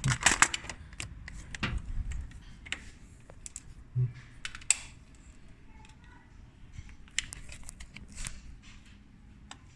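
Scattered, irregular clicks of keys being pressed on a water-soaked 60% mechanical keyboard, with a soft thump about four seconds in.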